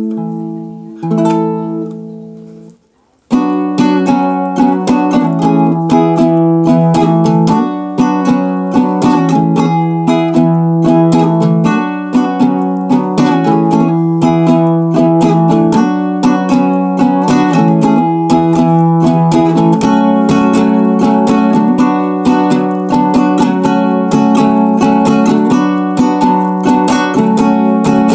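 Ukulele being played: a couple of chords ring and fade, then after a short break about three seconds in, steady rhythmic strumming starts and carries on through a series of chord changes.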